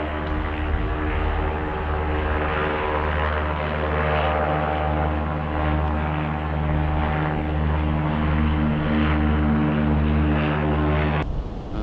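Propeller aircraft passing overhead, its engine a steady droning hum that wavers slowly in loudness. It cuts off suddenly near the end.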